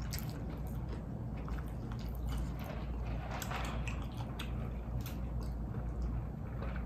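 Close-miked eating sounds: soft chewing and small wet mouth clicks, then a drink sipped through a straw, over a steady low hum.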